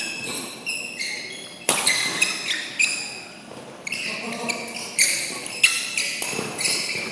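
A badminton rally: sharp racket hits on the shuttlecock, with the players' shoes squeaking again and again on the court floor as they move.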